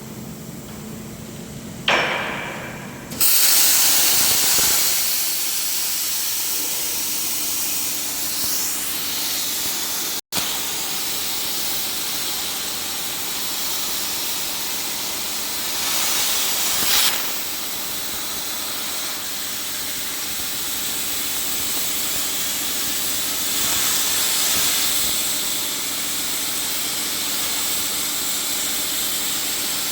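CNC gantry plasma cutting torch cutting with a loud, steady hiss that starts suddenly about two seconds in and comes up to full strength a second later.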